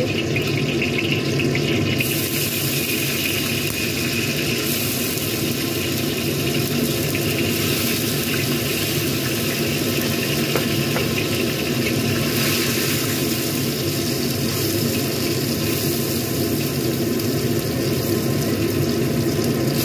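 Tofu cubes frying in hot oil in a wok: a steady sizzle that grows brighter about two seconds in and again a few seconds later as more cubes go into the oil. A steady low hum runs underneath.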